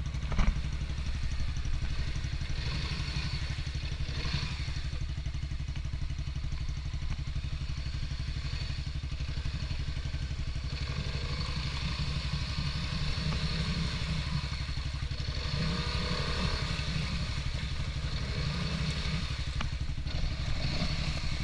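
Off-road vehicle engine running steadily, a continuous low rumble with some rise and fall, and a short knock about half a second in.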